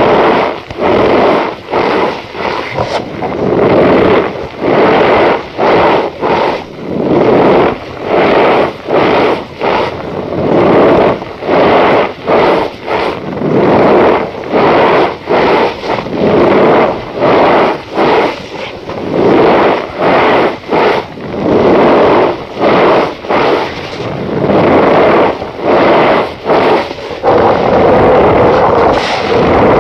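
Cornstarch powder being squeezed and pressed by hand, giving its squeaky crunch in repeated strokes, roughly one a second, with short gaps between.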